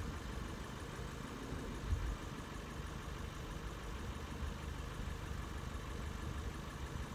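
Car engine idling: a steady low rumble, heard from inside the car with the window open. A brief low thump about two seconds in.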